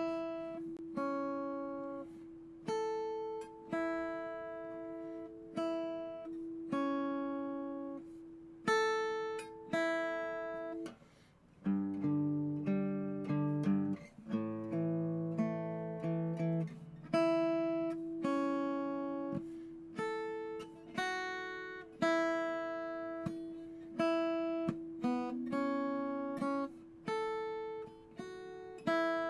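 Harley Benton Delta Blues MJCE mini-jumbo acoustic guitar, a laminated mahogany body strung with Ernie Ball Earthwood extra-light strings, played with a pick: a slow tune of single notes and pairs of notes, about one a second, over a ringing open string. A fuller passage of lower chords comes about halfway through.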